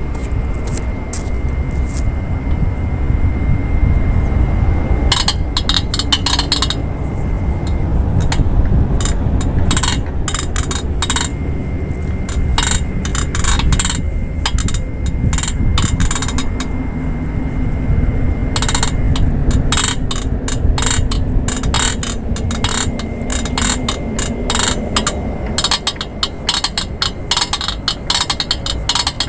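Metallic clicking and clinking from an outdoor waist-twister exercise machine as its rotating foot plate swivels back and forth under a person's weight. The clicks come in quick clusters starting about five seconds in, over a steady low rumble of wind on the microphone.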